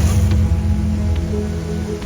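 Background music: sustained low notes holding a steady chord.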